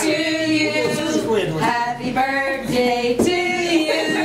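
Mixed voices singing, each note held for about half a second.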